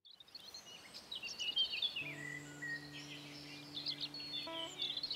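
Small birds chirping and trilling, fading in from silence, with a low steady drone coming in about two seconds in.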